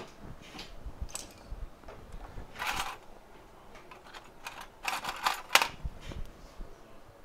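Small tools handled on a workbench: scattered light clicks, a short scrape about a third of the way in, and a quick run of sharp clicks a little after the middle.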